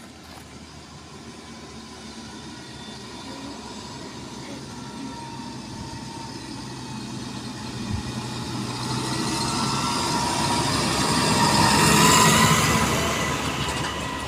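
A tractor towing a Claas combine header on a trailer comes along the lane, its engine and a steady whine growing louder as it nears and passes close about twelve seconds in, then starting to fade.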